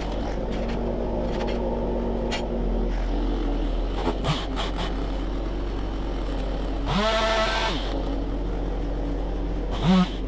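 Stihl MS193T top-handle two-stroke chainsaw running at idle, revved up briefly about seven seconds in and again near the end.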